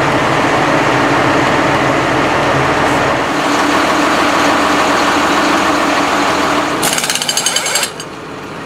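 Heavy machinery engine running steadily and loudly. About seven seconds in, a power tool rattles with rapid, evenly spaced impacts for about a second, then stops.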